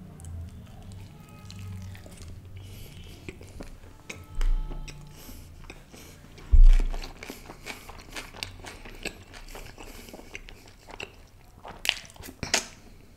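Close-miked chewing of butter naan with butter chicken gravy: many small wet clicks and smacks from the mouth, with two dull low thumps about four and a half and six and a half seconds in. Near the end comes another bite, a few sharp louder clicks.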